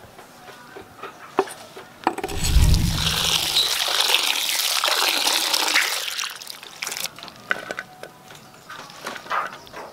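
Tap water pouring into a bowl of pineapple chunks for about four seconds, starting about two seconds in, as hands rub and rinse the pieces. Before and after the water, scattered light clicks and taps of the pineapple pieces being scraped into and handled in the bowl.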